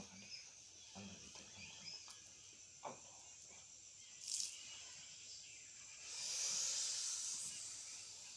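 Faint steady high chirring of insects, with a short hiss a little past halfway and a longer, louder hiss near the end.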